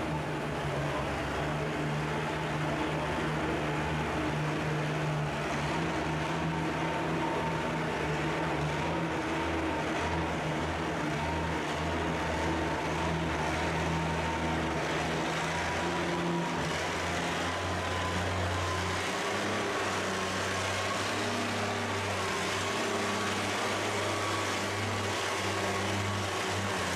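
Oliver 77 pulling tractor's engine running hard and steadily under load as it drags a weight-transfer pulling sled. A thin whine sits above the engine note and creeps slightly up in pitch.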